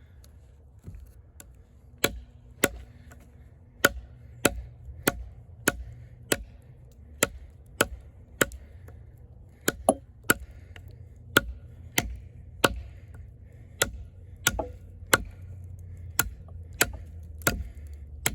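Eafengrow EF-143 fixed-blade camp knife chopping into wood: a steady run of sharp strikes about one every 0.6 seconds, starting about two seconds in. The AUS-10 steel blade is biting in with a large part of its edge.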